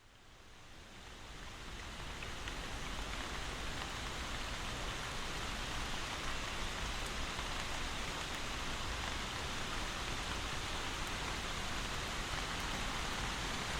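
Steady rain falling, an even hiss of drops that fades in from silence over the first couple of seconds and then holds level.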